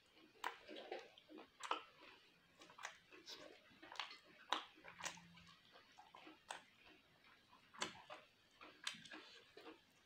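Close-miked chewing of a mouthful of chicken curry, with irregular wet lip smacks and mouth clicks about once a second.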